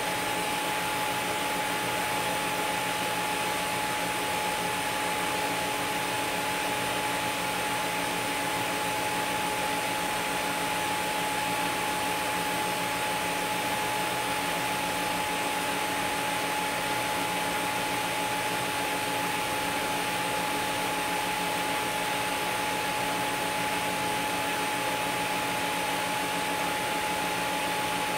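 TIG welding arc from a Miller Dynasty 350 burning steadily on stainless sanitary tubing at a set, unpulsed current: an even hiss with a steady high tone through it.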